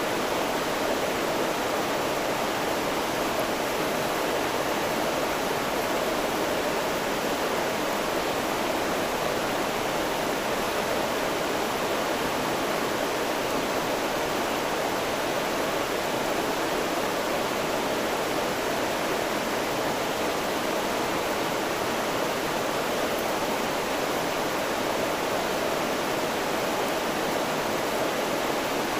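A river rushing steadily over its bed: an even, unbroken sound of flowing water.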